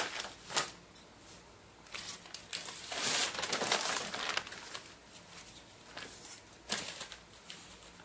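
Sheets of brown pattern paper rustling and crinkling as they are picked up, shifted and laid flat by hand: a longer rustle a few seconds in, with a few brief crackles around it.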